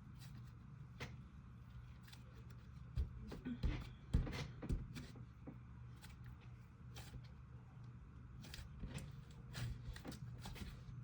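Hands squishing and poking a clay slime, giving scattered soft clicks and pops, with a few louder knocks about three to five seconds in, over a steady low hum.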